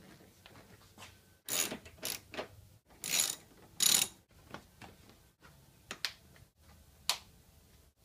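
Ratchet wrench clicking in a few short bursts of strokes as the headlight's mounting bolts are tightened, with light knocks from the headlight and its plastic cover.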